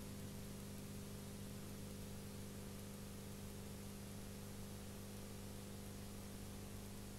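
Steady hiss with a low hum under it, unchanging throughout: the background noise of the soundtrack recording, with no other sound.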